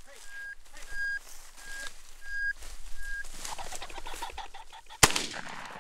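A run of short, even high beeps about two a second, then a rapid fluttering as a game bird flushes, and a single shotgun shot about five seconds in, by far the loudest sound.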